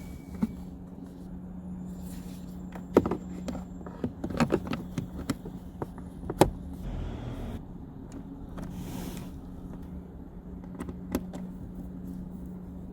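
Hard plastic interior trim and clips being handled: a scattered series of sharp clicks and knocks with a couple of short sliding rustles, over a steady low hum.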